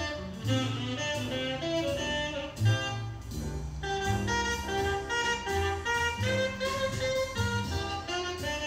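Background jazz music, a melody line of shifting notes over a moving bass line.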